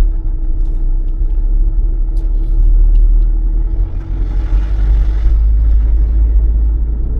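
Cabin sound of a Land Rover Freelander on the move: a loud low engine and road rumble, with a steady whining hum behind it that stops about five and a half seconds in. A hiss rises and fades about four to five seconds in. The whine is an unexplained 'wooing noise' that the driver suspects is the power steering pump or the fuel pump.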